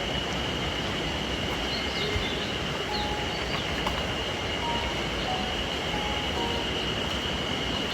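Steady roar of water falling at a waterfall, even and unbroken, with a thin steady high-pitched whine and a few faint short chirps above it.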